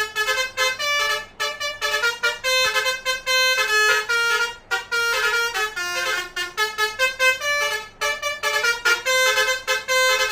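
Basuri multi-tone 'telolet' horn playing a fast tune: short and held horn notes changing pitch one after another, with brief gaps between phrases.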